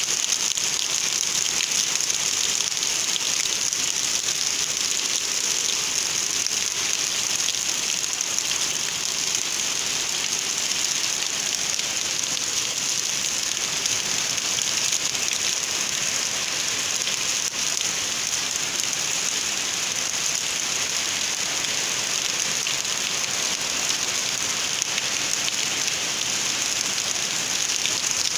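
Steady rain falling on a wet, puddled dirt yard and the trees around it: an even hiss that neither builds nor lets up.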